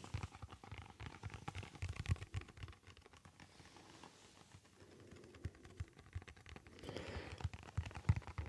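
White balance card handled and flexed in the hands: faint, irregular small clicks and rustles, busier at first and again near the end.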